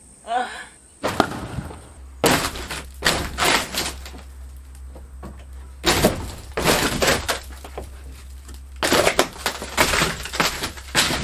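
Thin plywood roof sheathing being ripped away from the rafters, cracking and splintering in about four loud spells, with a piece tearing loose near the end.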